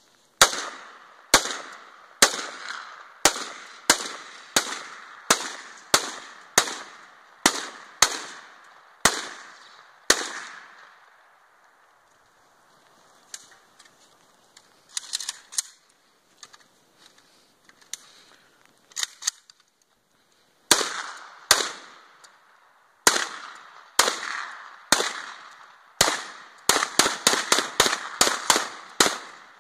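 Kalashnikov rifle fired in single shots: about fourteen quick shots in the first ten seconds, then a lull of about ten seconds with a few faint clicks of weapon handling during a magazine change, then shots about a second apart and a fast string of shots near the end.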